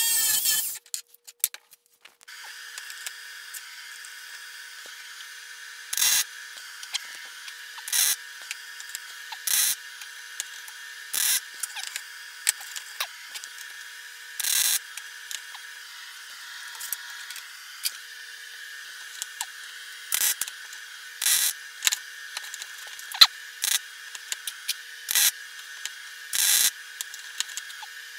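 Wire-feed welder tack-welding a steel washer onto a steel plate: about a dozen short bursts of arc, each under half a second, one every second or two, over a steady background hum.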